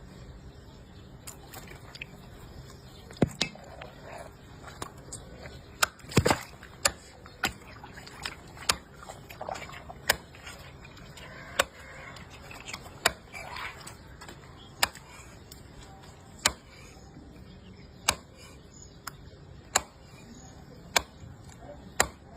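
Knife cutting: a series of sharp, short cutting strokes, spaced irregularly about a second apart, over a steady background hiss.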